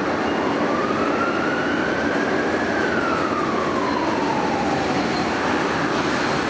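R160A-1 subway car running at speed: a steady rumble of wheels on rail. Over it, a faint whine rises for the first few seconds, then falls away.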